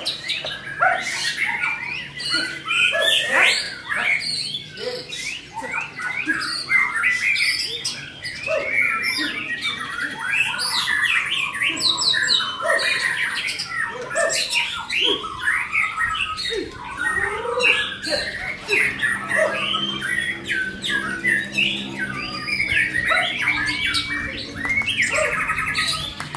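White-rumped shama (murai batu) singing without pause: a rapid, varied stream of whistled phrases, quick sliding notes and short sharp notes.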